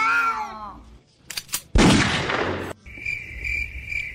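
A cat's meow trails off. After a few clicks comes a loud burst of hissing noise lasting about a second. Then a high chirping tone pulses steadily, about three times a second.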